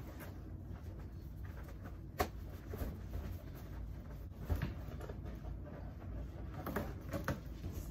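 Inflated latex balloons being handled and tied into a cluster: rubbing and light tapping, with a few short sharp sounds about two, four and a half, and seven seconds in, over a steady low hum.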